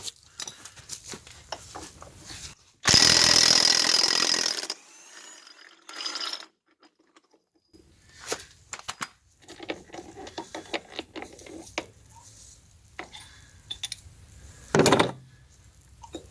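Work on a hydraulic cylinder: scattered clicks and knocks of tools on metal parts. About three seconds in, a power tool runs loudly for about two seconds, and there is a single sharp knock near the end.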